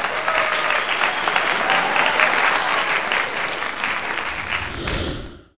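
Crowd applauding, a dense patter of many hands clapping that fades out quickly near the end.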